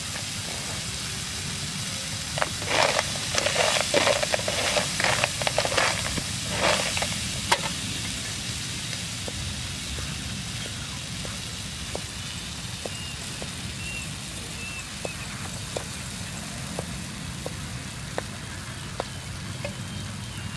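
Cockles sizzling steadily in a frying pan on a portable gas stove. A couple of seconds in comes a run of quick, loud cleaver strokes on a wooden cutting board, lasting about five seconds, followed by sparser single knocks about once a second.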